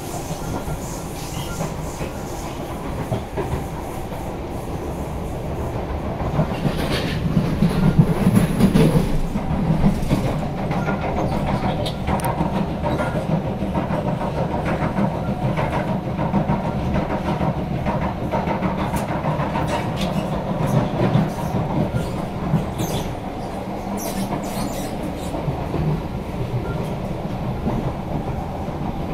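Interior running noise of a Kawasaki–Sifang C151A MRT train at speed. It is overlaid by repeated knocking from flat spots on the car's wheels. The running noise and knocking grow louder about 7 to 10 seconds in.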